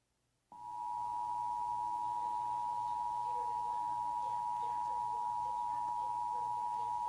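Emergency Alert System attention signal: a steady two-tone alert, two close pitches sounding together, starting about half a second in after a moment of silence.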